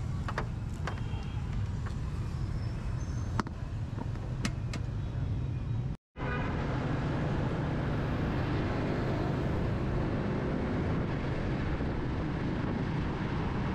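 Motorbike riding through street traffic: steady engine and road rumble, with a few sharp clicks in the first half and a brief dropout at a cut about six seconds in.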